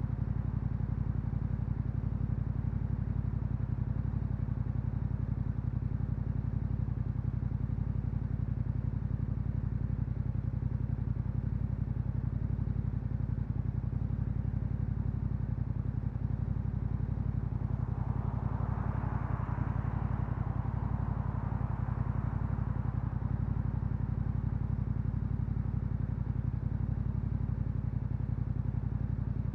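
Yamaha Ténéré 700's 689 cc parallel-twin engine with an Akrapovič exhaust idling steadily, its pitch unchanged. A rushing sound swells and fades about two-thirds of the way through.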